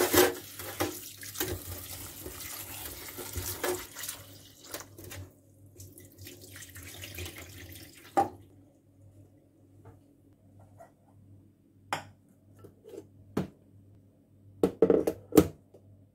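Water running and splashing into a stainless steel sink as cut potatoes are rinsed in a steel pot, then the rinse water is poured off. Sharp knocks of the metal pot follow, the loudest cluster near the end.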